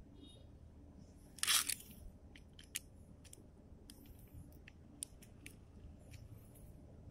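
ProXP RJ45 crimping tool pressing an RJ45 plug onto a stiff Cat6 LAN cable: one short crunch about a second and a half in, followed by several light clicks.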